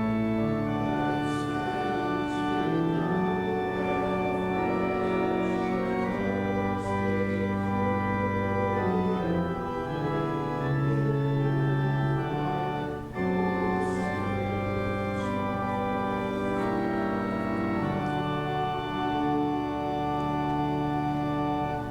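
Church organ playing music in long held chords that change every second or two, with a brief break about thirteen seconds in.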